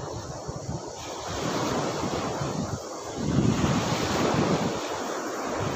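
Small lake waves breaking and washing around a camera held at the water's surface, with wind buffeting the microphone. The wash swells twice, the louder surge about three seconds in.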